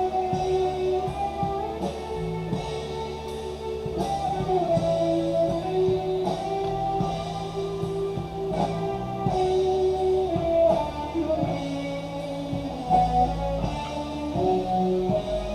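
Music with guitar, drums and singing.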